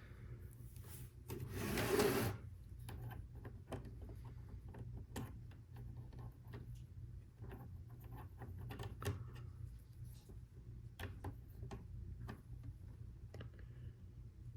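Plastic LEGO Technic pieces being handled and pressed together: scattered small clicks and taps, with a louder scraping rustle lasting about a second near the start, over a low steady hum.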